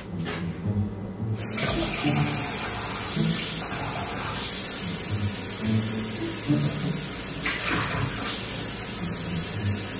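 A tap is turned on about a second and a half in, and water runs steadily into a sink.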